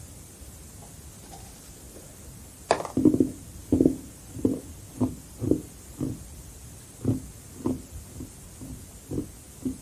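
Carbonated crushed ice being bitten and chewed. One sharp crunching bite comes a little under a third of the way in, then steady crunching chews follow at about two a second.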